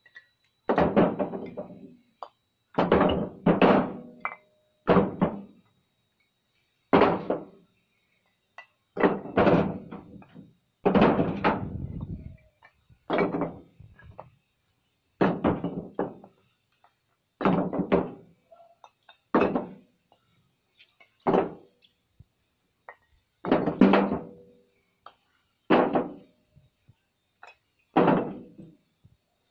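Old fired bricks tossed one at a time onto a brick pile, each landing with a clunk and short clatter, about one every two seconds.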